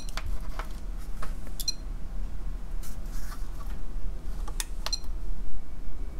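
Scattered small clicks and taps of test clips and leads being handled on a capacitor under test, over a low steady hum.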